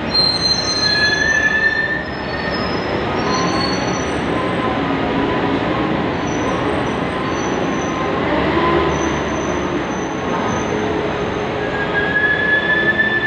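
Loaded trucks driving down a ferry's steel-grated vehicle ramp: a steady heavy rumble of engines and tyres on steel, with several high squeals that come and go.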